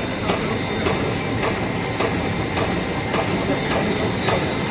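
Twin-screw food extruder line for snack pellets running: a steady mechanical hum with a high whine and repeated clicks.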